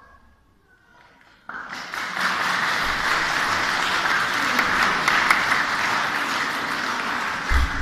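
Audience clapping, starting suddenly about a second and a half in and keeping on steadily, with a brief low thump near the end.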